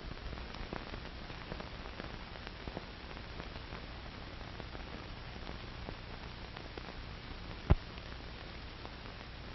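Surface noise of an old film print's soundtrack: steady hiss and low hum with scattered crackles, and one loud pop near the end.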